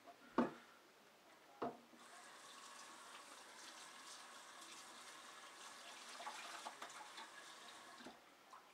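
Two sharp clunks of dishes in the sink, a little over a second apart, then a kitchen faucet running steadily into the sink for about six seconds before it is shut off.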